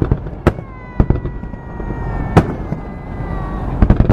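Aerial fireworks shells bursting: single sharp bangs about every half second to second, then a quick run of several bangs near the end, over a continuous low rumble.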